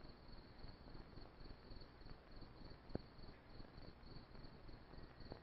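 Faint crickets chirping in a steady pulsing trill, about four pulses a second, with one short click about three seconds in.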